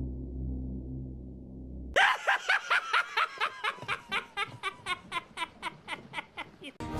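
A person laughing in a rapid string of short high 'ha' bursts, each sliding down in pitch, slowing and fading over several seconds. Before it comes a low steady hum, and a loud burst of noise cuts in near the end.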